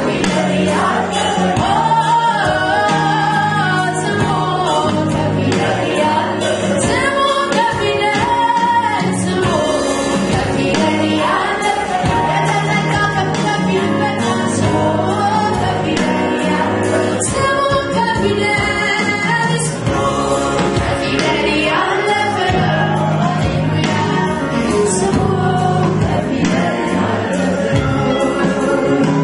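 Live Ethiopian gospel worship song (mezmur): a woman sings lead into a microphone over a band with drums, while the congregation sings along.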